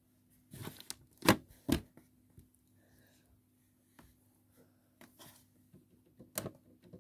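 Slime being pressed and stretched by hand, giving a few sharp sticky clicks and pops, the loudest two a little over a second in.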